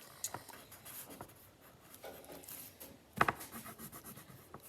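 Marker scratching on paper as boba pearls are coloured in, in short repeated strokes, with a sharp tap or knock about three seconds in.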